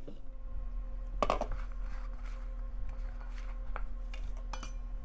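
Hands mixing and kneading rice-flour dough in a stainless steel bowl, with a few light clinks of fingers against the bowl's metal, over a steady low hum.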